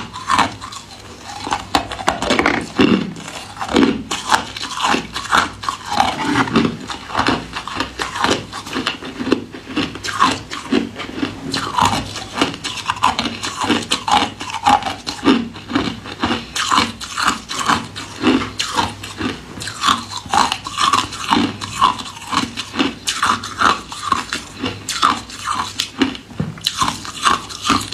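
Ice being bitten and chewed close to the microphone: a steady run of short, crisp crunches, roughly two a second.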